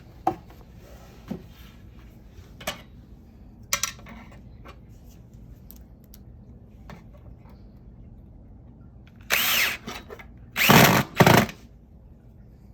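Cordless drill driving screws to fix a drawer track, in three short runs near the end. Scattered light knocks and clicks of parts being handled come before.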